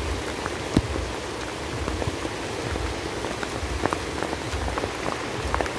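Steady rain falling on a river's surface, with many scattered sharp taps of single drops landing close by.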